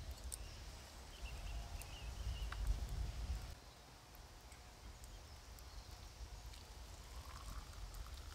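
A low rumble on the microphone that drops away about halfway through, with a few faint clicks and knocks of a metal camping pot being handled and coffee poured into a wooden cup.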